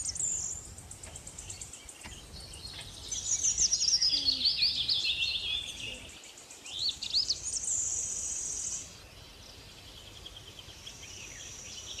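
Several wild birds chirping and calling, with a run of quick, falling high notes about three seconds in and a steady high buzz near eight seconds; the calls thin out after about nine seconds.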